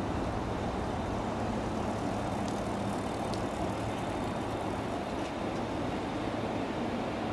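Steady low rumble of a JR EF65 electric locomotive running slowly on approach, with a few faint clicks partway through.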